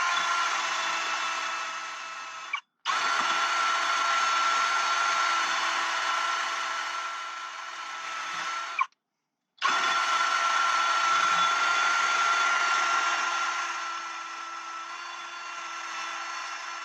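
Electric drill spinning a brush attachment at a steady high whine with a scrubbing rasp, cleaning the rear brake parts. The sound cuts off abruptly twice for a moment, and it is a little quieter over the last few seconds.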